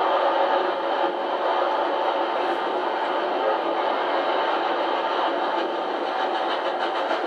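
Steady rush of a train running at speed, heard from a carriage window with a second train running alongside on the parallel track, replayed through a TV speaker from old videotape.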